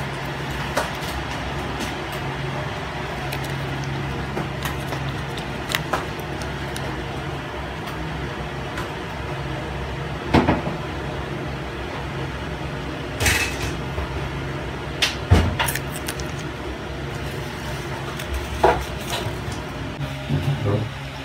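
Scattered short clicks and taps of a small plastic butter cup being handled as butter is squeezed and spread onto hotcakes in their box, over a steady low hum.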